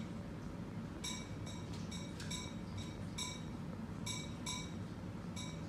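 Light ringing clinks, like small bits of metal tapping, in quick runs of two to four about a fifth of a second apart, over a low steady hum.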